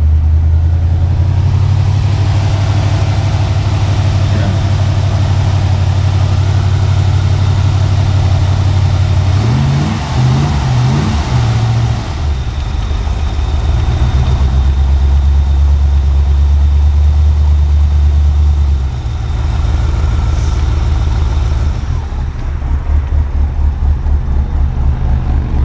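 Pontiac 350 V8 running with new spark plugs and freshly reset ignition timing: a steady idle with a few quick throttle blips about ten seconds in. The idle settles lower near twenty seconds and pulses unevenly near the end.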